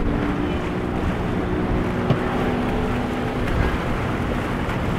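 Dusky center-console boat's engine running steadily as the boat heads out through choppy water, over a steady hiss of wind and rushing water.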